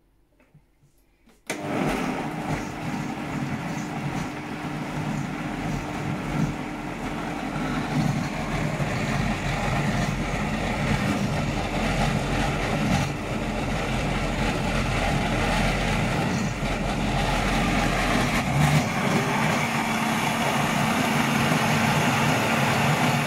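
High-powered countertop blender starting about a second and a half in and running steadily at full speed, puréeing roasted butternut squash and stock into a thick soup. It switches off at the very end.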